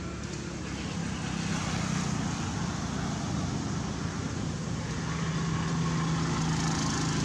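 A motor vehicle engine running near the road, a steady low hum that slowly grows louder as it comes closer.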